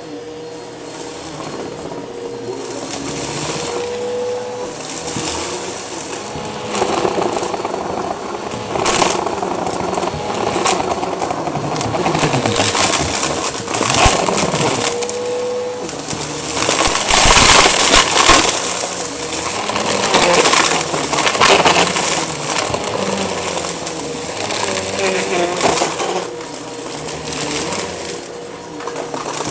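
Eureka vacuum cleaner running along carpet edges, its motor hum rising and falling as it is pushed back and forth, with scattered crackles as it sucks up crunchy debris.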